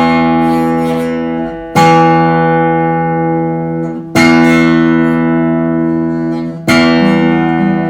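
Guitar playing an instrumental intro: full chords strummed slowly, three of them, roughly two and a half seconds apart, each left to ring and fade before the next.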